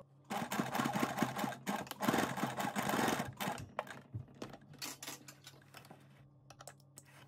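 Domestic electric sewing machine stitching fabric in two fast runs, each about a second and a half long, then a few separate clicks as it stops.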